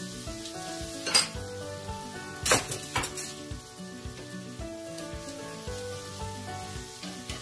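Food sizzling on a gas stove, a steady hiss, over background music with a slow-moving melody. A few sharp clicks sound about a second in and again around two and a half and three seconds in.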